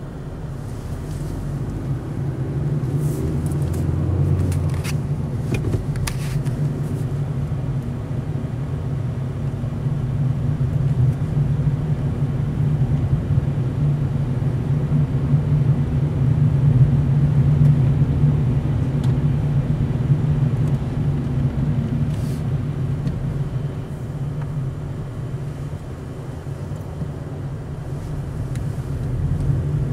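Car cabin noise while driving: a steady low rumble of engine and tyres, heard from inside the car, with a few faint clicks about three to six seconds in.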